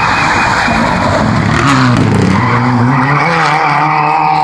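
Rally car engine running hard at high revs. Its note drops about two seconds in as the car slows, then climbs again as it accelerates away.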